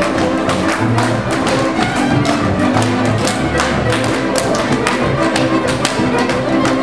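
Transylvanian village string band (fiddles, contra, accordion and double bass) playing a Hungarian dance tune, the fiddles carrying the melody over a sharp, regular rhythmic pulse of several accents a second.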